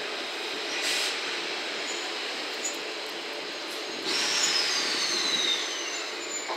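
Steady rail noise of an EF66 electric locomotive moving slowly through the yard. About four seconds in, a high-pitched steel wheel squeal sets in and slowly falls in pitch.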